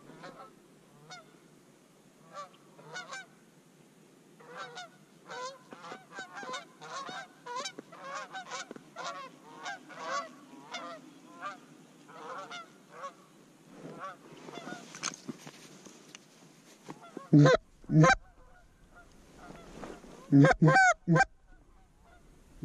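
A flock of geese honking, many short overlapping calls at a distance. About seventeen and twenty seconds in come two brief runs of much louder, closer honks.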